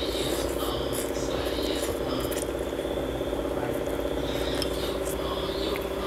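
A person slurping and chewing noodle soup close to a lapel microphone, with scattered light clicks of spoon and chopsticks against the bowl, over a steady buzzing hum.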